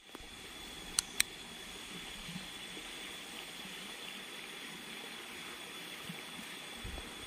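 River water flowing steadily, with a thin, steady high tone over it. Two sharp clicks come close together about a second in.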